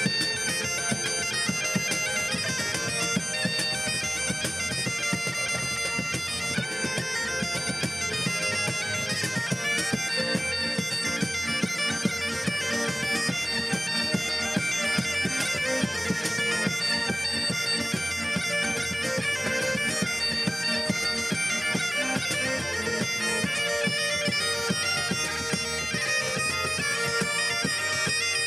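Highland bagpipes playing a lively tune over their steady drone, with fiddle, accordion and a cajón keeping the beat.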